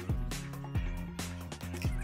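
Background music with a steady beat: deep bass drum hits that drop in pitch, under sustained chords and crisp high percussion.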